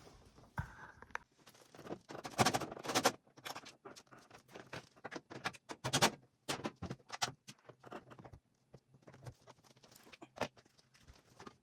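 Irregular clicks, taps and knocks of hand tools and parts being handled while a washer's panel is taken apart, with a louder cluster of knocks a couple of seconds in.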